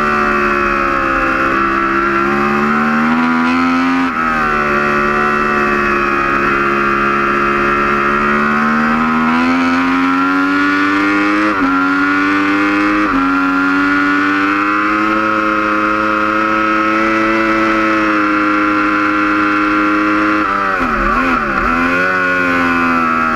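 Yamaha R1 superbike's crossplane inline-four engine at racing speed, heard from onboard. The pitch climbs steadily in each gear and drops suddenly at each upshift, three times. Near the end the revs dip and wobble quickly as the rider shifts down for a corner.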